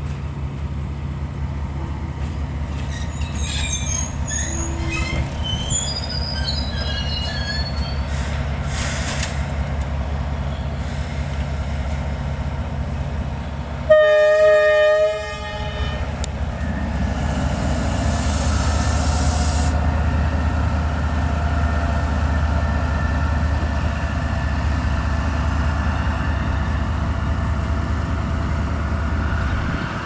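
D19E diesel locomotive's engine running with a steady low drone as it rolls slowly. About halfway through it sounds one loud horn blast of just over a second. After the horn the engine drone grows louder, with thin high wheel squeals.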